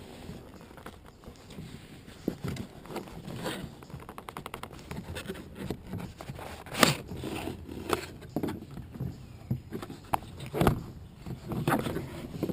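Hands opening toy packaging: cardboard and plastic scraping and rustling, with scattered sharp clicks and knocks and a quick run of ticks about three and a half seconds in.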